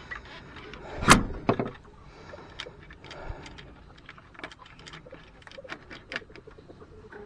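A chicken coop door or nest-box lid being shut: one loud knock about a second in and a smaller knock just after, then light scattered clicks and handling noises.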